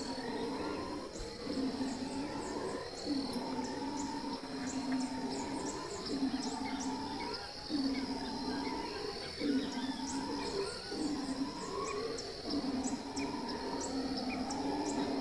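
Howler monkeys roaring in a chorus: deep calls rising and falling in roughly one-second phrases, one after another, with birds chirping high over them.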